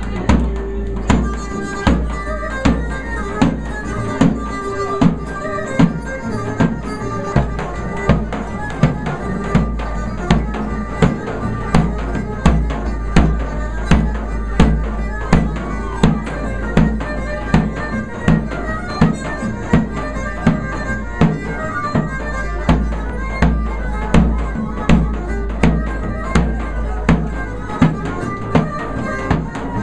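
Live Greek folk music: a large hand-struck drum beats a strong, steady pulse a little faster than once a second under a sustained wind-instrument melody.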